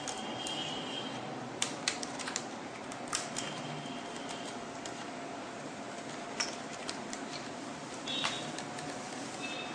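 Scattered light clicks and taps of small plastic and metal laptop parts being handled and fitted, over a faint steady hum.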